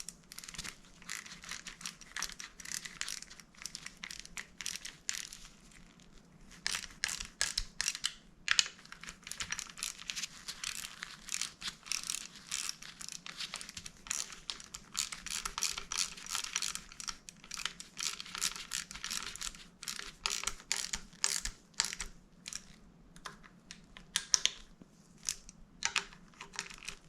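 Hand work on motorcycle parts: a long run of quick scraping, rustling and clicking sounds, with short pauses around eight and a half seconds in and again near the end.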